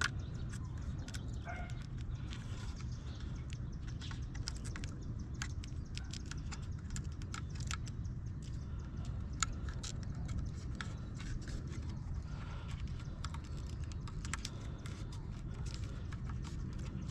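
Irregular light clicks and taps of hands pressing and stretching a self-adhesive gasket onto a pickup's third brake light, over a steady low background rumble.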